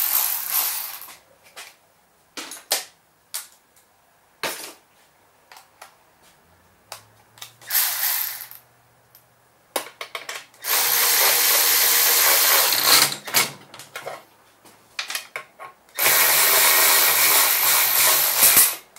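Cordless electric ratchet running a bolt down into a Briggs & Stratton snow blower engine, in two steady motor bursts of a couple of seconds each, after some clicks and clatter of tools being handled.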